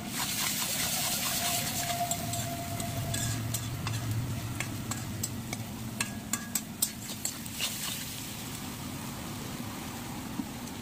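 Chopped onions and green vegetables sizzling in an aluminium wok: the sizzle jumps up suddenly at the start and eases off over a few seconds. Then a metal spatula scrapes and clicks against the wok several times as the mix is stirred.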